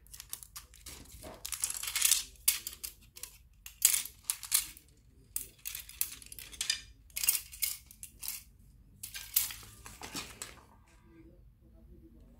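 Clear plastic packaging crinkling in irregular bursts, with light clicks and clatter from the AC air deflector's small white plastic clips and mounting brackets being handled. It stops about ten seconds in.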